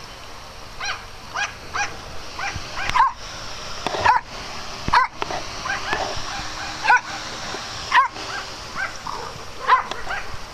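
Small dog barking over and over in short, high-pitched yips, about one a second, a few louder than the rest.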